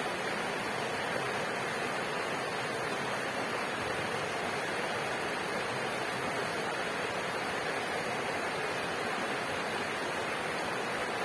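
River water flowing steadily, an even rushing sound that does not change.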